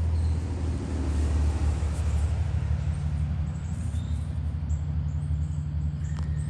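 A steady low rumble. From about halfway in, insects make short, high-pitched chirps that repeat.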